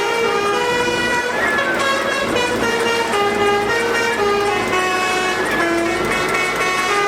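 Bus horn sounding a continuous run of loud held notes that step up and down in pitch like a tune, with a couple of short sliding notes between them.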